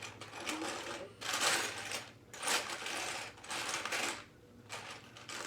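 Small plastic Lego pieces rattling and clattering in irregular bursts as hands sort through them.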